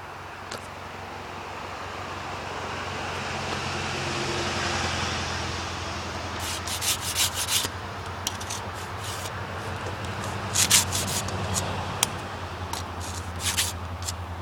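Hand saw rasping through wood in short runs of quick strokes from about six seconds in, over a steady low hum. A swelling hiss that rises and fades comes before the strokes start.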